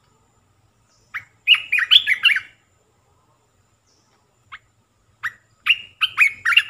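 Olive-winged bulbul singing in two short phrases of rapid notes, one about a second in and another from about five seconds in, each led by a single separate note.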